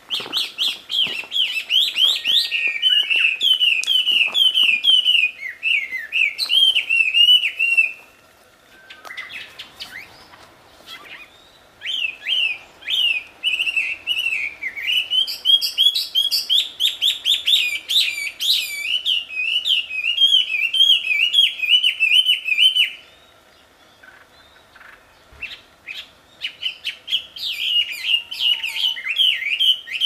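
Chinese hwamei (wambi) singing: long, loud runs of rapid, varied whistled notes, in three bouts separated by pauses of a few seconds.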